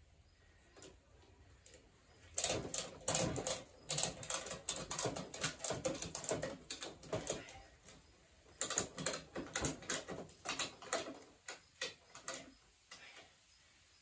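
Sawmill slabs clattering and knocking against one another as they are shifted on a wooden rack: irregular runs of sharp wooden knocks, starting about two seconds in, easing off around six to eight seconds, picking up again and stopping about a second before the end.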